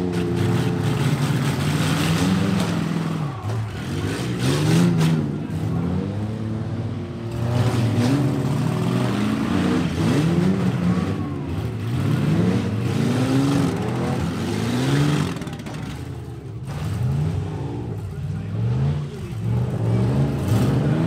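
Several demolition derby trucks' engines revving hard again and again, their pitches rising and falling and overlapping. There are a few sharp bangs as the trucks hit each other.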